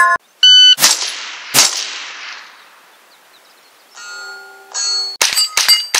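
Steel targets ringing as they are hit: sharp metallic clangs, two with long fading tails early on, then a fast string of clangs near the end.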